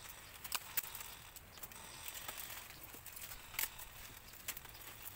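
Dry bamboo twigs and stems crackling and snapping in short, scattered clicks as a person climbs through a dense bamboo clump, over a soft steady hiss.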